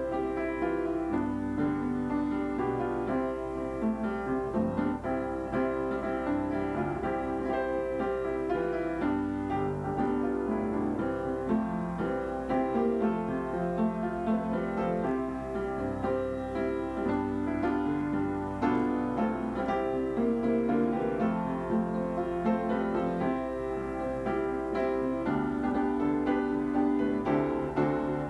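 Instrumental piano music playing without pause.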